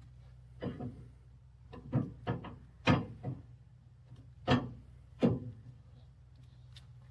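Irregular sharp knocks and clunks, about eight over five seconds and some in quick pairs, from logs or lumber being handled at a Wood-Mizer LX50 Super sawmill. Under them runs a steady low hum, plausibly the sawmill's engine idling.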